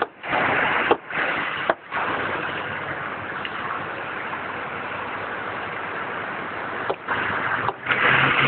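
Steady vehicle engine and road-traffic noise, cut by several brief sudden dropouts.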